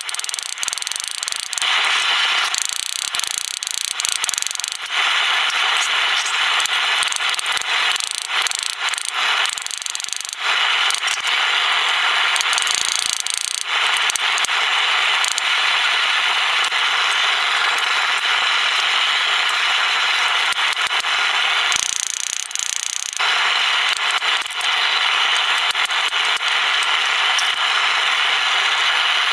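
Power tool abrading metal, a steady, rough hiss with no pitched hum. It lets up briefly a few times, the longest break about 22 seconds in, as the work is lifted off and pressed back on.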